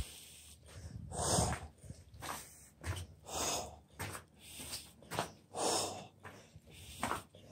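A man breathing hard, with a breath about every second, and footsteps going down a debris-strewn staircase.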